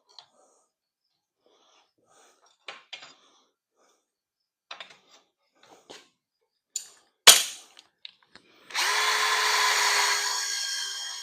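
Scattered faint clicks and one sharp knock, then about two-thirds of the way through a power drill starts and runs steadily with a whining tone, slowly fading. It is an odd noise that the owner takes as a sign that the drill is giving out.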